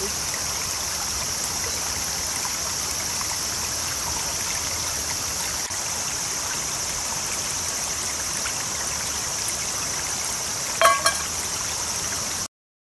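Shallow stream flowing over rocks, a steady babble of water. About 11 seconds in, two short ringing clinks; near the end the sound cuts off abruptly.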